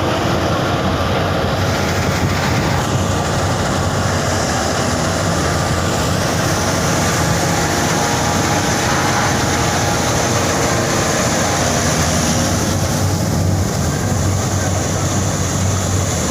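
Combine harvester running: a steady, loud mechanical din of engine and machinery.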